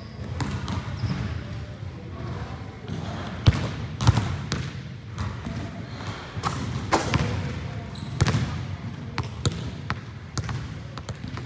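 Basketball dribbled and bouncing on a gym floor, sharp single thuds at uneven spacing, some clearly louder than others.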